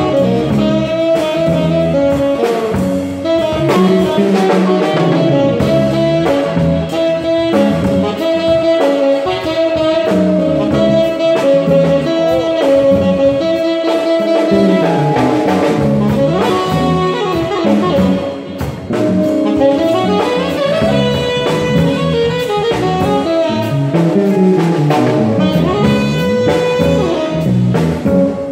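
Small jazz band playing live, with a tenor saxophone carrying a melodic line over electric guitar and drum kit. Recorded on a phone, with the room's echo.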